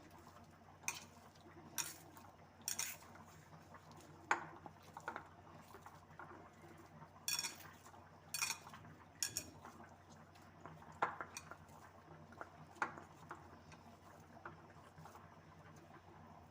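Kitchen utensils and cookware clinking: about a dozen sharp clinks at uneven intervals, over a faint steady hum.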